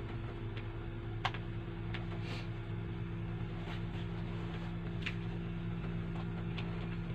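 Steady low mechanical hum from an electric appliance running in the room, with a few faint scattered clicks over it.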